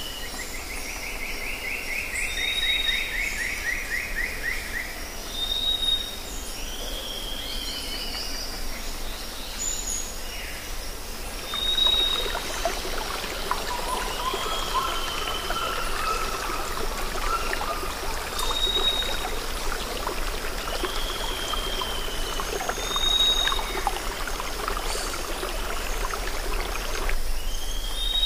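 Wild birdsong: short whistled notes and downward-slurred calls recur every few seconds, with a rapid trill near the start. Underneath runs a steady hiss that grows thicker and busier from about the middle until near the end.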